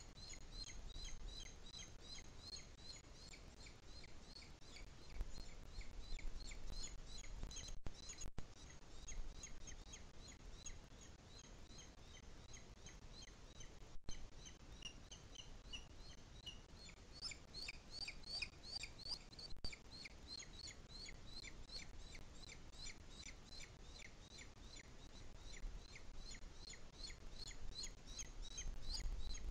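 Booted eagle chick begging with a continuous series of short, high-pitched calls, about three a second, while it is being fed; the calls grow louder and rise in pitch for a few seconds past the middle.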